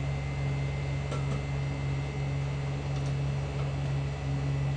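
A steady low mechanical hum with a few faint ticks.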